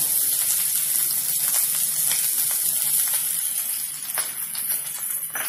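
Oil sizzling under mashed potato and spices in a hot kadai: a steady frying hiss with a few faint taps, thinning out near the end.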